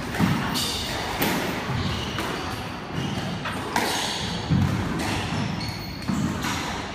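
Squash rally: sharp smacks of the ball off rackets and the walls every second or so, echoing in the court, with sports shoes squeaking on the wooden floor.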